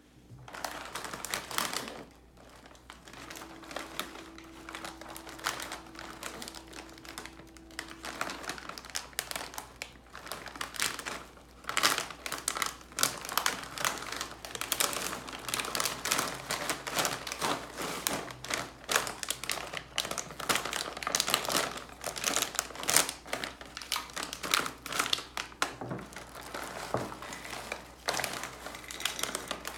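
A foil-lined plastic snack bag of shrimp crackers crinkling and rustling in gloved hands as it is turned over and handled. The crackling is irregular and runs almost throughout. Near the end the open bag is tipped to pour the crackers into a bowl.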